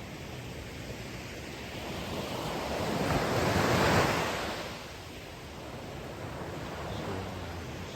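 Ocean waves washing onto the shore. One wave builds and breaks loudest about halfway through, then recedes into steady surf, with some wind on the microphone.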